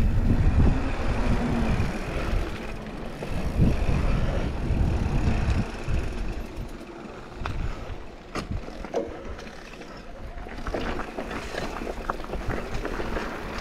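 Mountain bike riding down a rough trail: wind buffeting the microphone and tyres rumbling over rocks and dirt, with scattered sharp knocks and rattles from the bike. It is louder in the first half, drops back for a couple of seconds later on, then picks up again.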